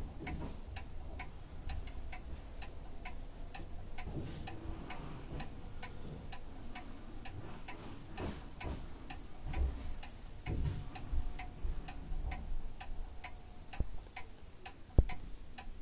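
A clock ticking steadily and evenly, about two to three ticks a second, over faint low rustling, with a single soft knock near the end.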